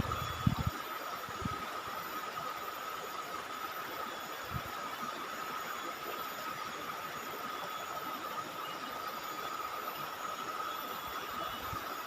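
Steady rushing water of a rocky stream, with a steady high hum over it and a few dull low thumps in the first few seconds.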